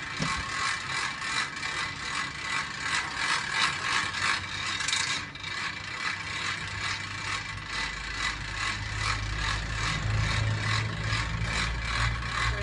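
Car-transporter trailer winch ratcheting: a fast, even clicking as the strap draws the car up onto the trailer. A low steady hum joins about eight seconds in.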